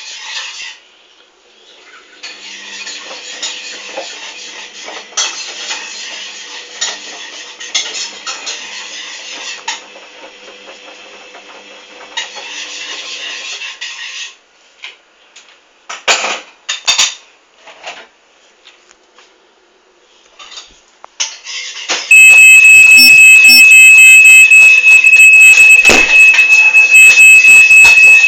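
Hoover Dynamic washing machine near the end of its 60 °C main wash. First comes a hissing, clattering run of water and drum noise, then a few clicks and a near-quiet pause. About 22 seconds in, a loud, steady high-pitched tone sets in and holds.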